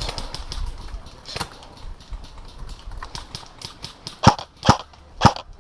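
Airsoft gunfire: four sharp single shots about half a second apart near the end, after a quicker, fainter patter of clicks.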